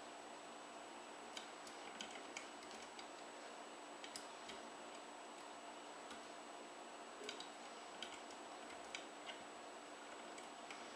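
Faint, irregular ticking from a spinning copper-wire orbitron as its rings knock and click at their taped wire pivots, roughly once a second, over a low steady hiss.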